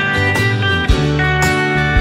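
Background music: a guitar-led tune over a steady beat of about two strokes a second.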